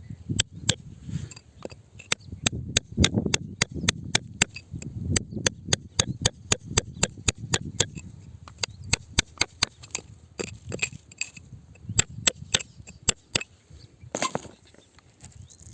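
A hand tool striking rock again and again, sharp clinks at about two to three a second over a low scraping, as rock is chipped away in a dig for crystals. A heavier knock near the end.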